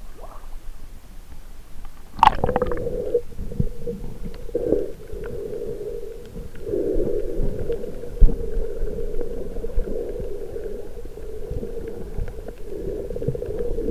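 Muffled underwater rumbling and sloshing of water moving around a submerged action camera's waterproof housing, with a brief sharp crackle about two seconds in.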